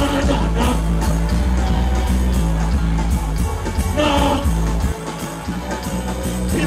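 Live reggae band music through a PA system with a heavy bass line, and a male singer's voice over it at the start and again about four seconds in; the bass thins out briefly around five seconds in.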